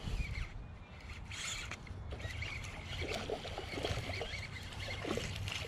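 A hooked fish being reeled in: a spinning reel cranking, with water splashing and churning at the surface.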